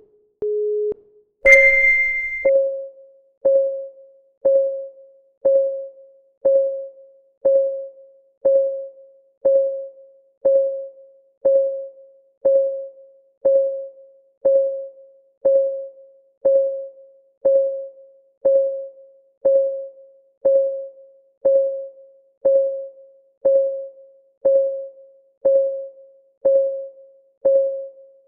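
Countdown-timer ticking sound effect: evenly spaced ticks, once a second, each a short pitched tick that dies away quickly. It is preceded by a last lead-in beep near the start and a brief high tone about a second and a half in, as the countdown begins.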